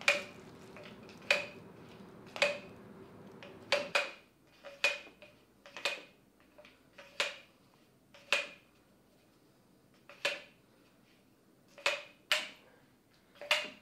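Paint squeeze bottles handled over a canvas: about a dozen sharp little knocks and taps, irregularly spaced roughly a second apart, each with a brief ring.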